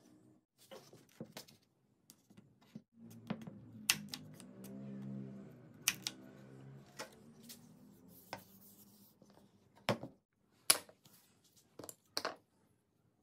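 Sharp, irregular clicks and knocks of hard plastic and wood as a homemade gun of wooden stock and PVC pipe is handled and its bolt handle worked. There are about a dozen, the loudest about three-quarters through.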